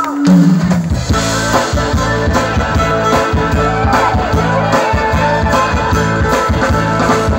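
Live rock band with violin playing an instrumental passage: electric guitar, bass guitar, drum kit and violin, all coming in together just after the start and playing loudly and steadily.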